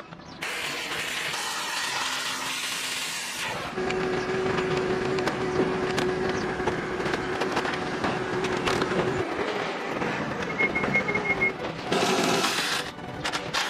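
Dismantling-yard noise of a truck being taken apart: machinery running with a steady hum through the middle, scattered metal knocks and clanks, and a quick string of short high beeps near the end.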